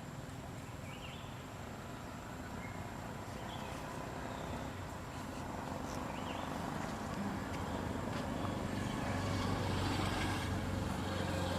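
A low steady rumble, like a motor, slowly growing louder, with a few faint short high chirps over it.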